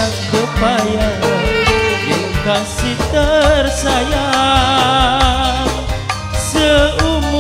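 Live dangdut band music played through a PA: a steady drum beat and bass under a wavering melody, with a man singing.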